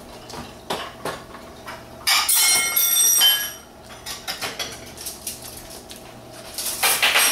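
Clatter and clinks of dishes and cutlery being handled on a table, with scattered small clicks and two louder, longer bursts of rattling, one about two seconds in and one near the end.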